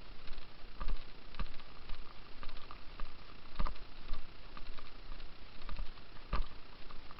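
Irregular clicks and soft thumps from a handheld camera being carried and panned by someone on foot, over a low rumble of wind on the microphone.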